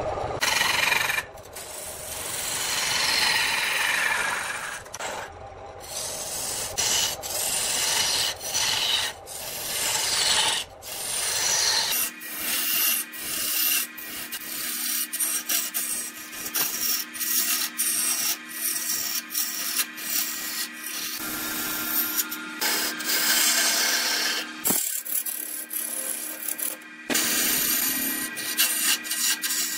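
Turning tool cutting into a jackfruit log spinning on a wood lathe: a rough scraping shave that rises and falls with each pass of the tool. From about twelve seconds in, a steady hum from the running lathe sits under the strokes of cutting.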